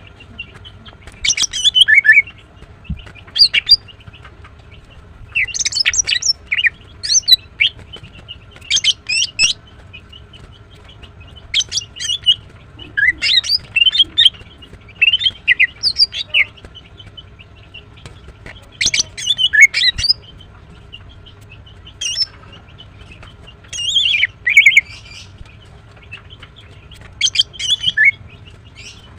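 Female greater green leafbird (Chloropsis sonnerati) chirping: about a dozen short bursts of quick, high, sliding chirps, a couple of seconds apart with pauses between. It is the call of a female in breeding condition calling to males.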